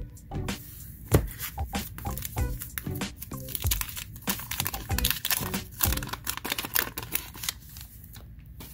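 Paper wrapper of a Fleer basketball card pack being torn open and crinkled: a dense run of sharp crackles that dies down near the end.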